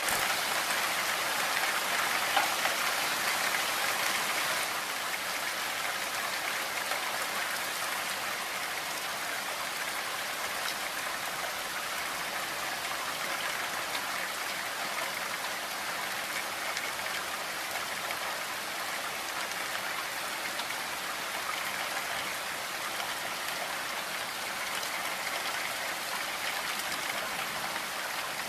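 Steady heavy rain falling, a dense, even hiss of drops, a little louder in the first few seconds.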